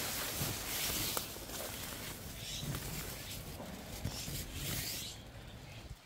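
Wet weeds and leaves rustling and brushing against someone pushing through dense overgrowth on foot, with dull footfalls; the rustling stops abruptly about five seconds in.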